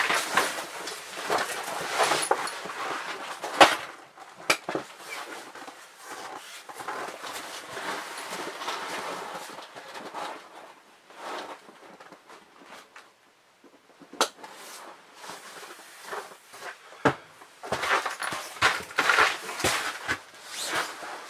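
Footsteps in boots and rustling as the canvas door flap of a tent is pushed open and walked through, with a few sharp knocks along the way.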